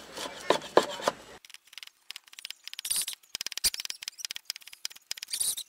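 Cleaver chopping young tamarind leaves on a wooden chopping board: a few sharp chops in the first second or so, then quick, lighter chopping taps.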